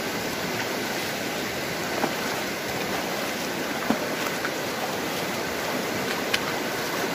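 Fast river current rushing steadily, with a few faint knocks.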